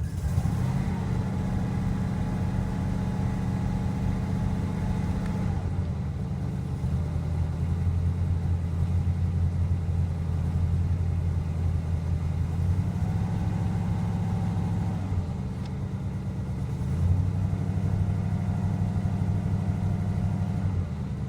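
Cold 1971 Oldsmobile Cutlass S engine running rough just after a hard cold start, its speed held at a few steady raised levels in turn as the throttle is worked to warm it up.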